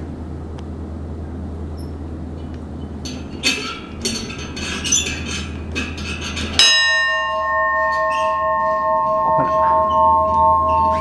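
A small hanging bell rung by pulling its rope: a light clatter of knocks as the rope and clapper are worked, then one strike about two-thirds in, after which the bell rings on with several tones, the lower ones wavering.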